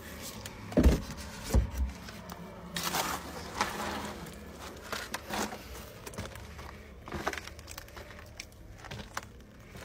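Scuffing, crunching steps on loose dirt and stones, with close rustling and handling noise, and two dull thumps in the first two seconds.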